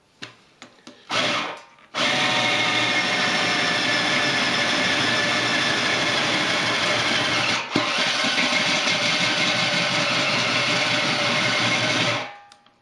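Cordless drill turning a step bit in a pilot hole in a stainless steel keg, cutting the hole wider. A short burst comes about a second in, then the drill runs steadily for about ten seconds with a brief dip in the middle, and stops near the end.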